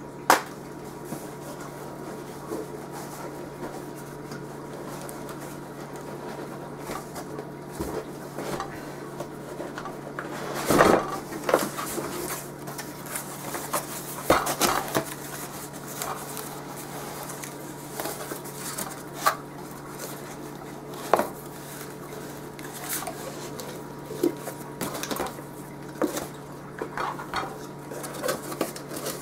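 Glass storage dishes and cardboard boxes being handled: irregular clinks and knocks of glass set down and moved, with a few louder clusters around the middle, over a faint steady hum.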